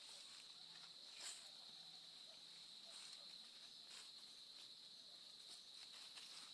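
Faint, steady high-pitched chirring of insects, with a few scattered soft clicks and rustles.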